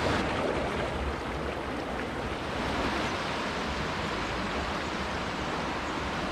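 Steady, even rushing outdoor noise with no distinct events, and an uneven low rumble underneath.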